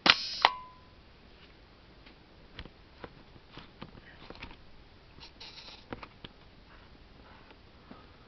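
FED 4 rangefinder's focal-plane shutter fired at 1/2 second: a release click and a short whir, then the closing click about half a second later, with a brief ring. Faint scattered clicks follow as the camera is handled.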